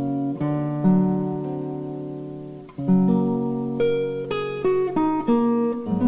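Background music: an acoustic guitar strumming and plucking chords that ring out and fade, with a quicker run of single picked notes in the second half.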